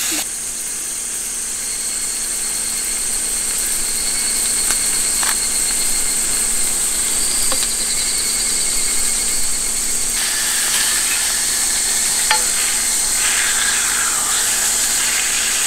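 Beef steaks sizzling steadily on a black steel griddle plate over a gas camp burner, with a few light clicks along the way.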